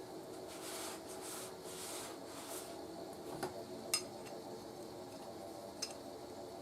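Small parts being handled on a workbench: soft rubbing and scraping for a couple of seconds, then a few light clicks, the sharpest about four seconds in, over a faint steady hum.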